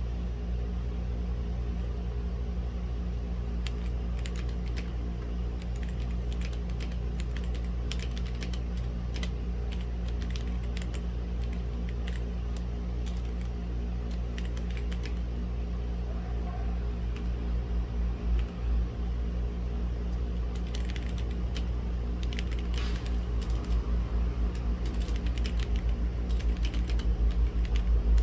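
Typing on a mechanical keyboard with linear red switches, keystrokes clicking in runs with short pauses. Beneath it a steady low hum runs throughout and grows louder near the end.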